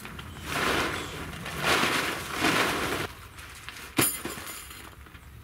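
Plastic tent groundsheet rustling and flapping in several swishes as it is shaken out and spread, then a single sharp click about four seconds in.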